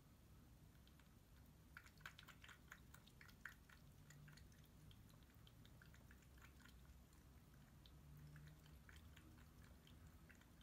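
A cat lapping water: faint, quick wet clicks of the tongue in uneven runs, busiest a couple of seconds in.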